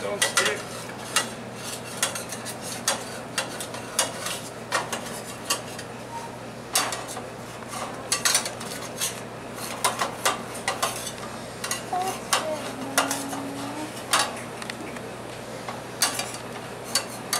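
Metal spatula scraping and clicking against stainless-steel frying pans as it works under slices of French toast that are sticking to the pan, over a faint sizzle of butter. The scrapes come irregularly, several every second or two.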